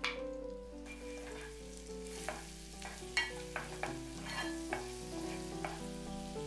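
Minced garlic sizzling in foaming melted butter in a nonstick pot. From about two seconds in, a wooden spoon stirs it, with a run of sharp clicks as it knocks against the pan.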